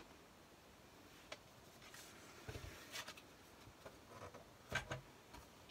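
Faint handling sounds: a few soft knocks, the loudest near the end, as a plastic scoring board is set down on the table and cardstock is laid over it.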